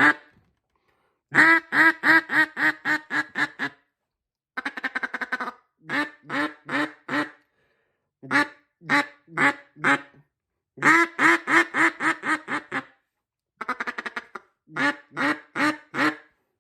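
A hand-blown duck call with a flatter tone, sounding runs of quacks separated by short pauses. Twice a quicker, rapid-fire run of short notes comes in.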